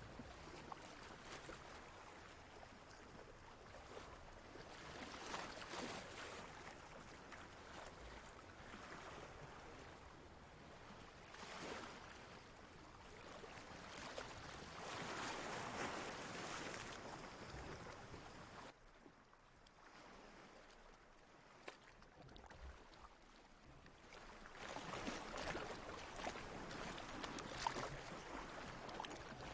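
Ocean waves washing in and receding, a soft rushing that swells and fades every few seconds, with a quieter lull a little past halfway.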